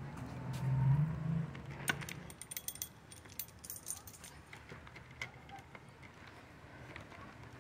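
Light metallic clinking and jingling, a quick run of small clicks starting about two seconds in and fading by about four seconds. A low hum is heard under the first couple of seconds.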